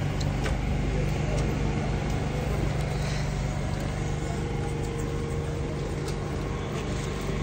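A steady low engine hum running evenly throughout, with a few faint clicks now and then.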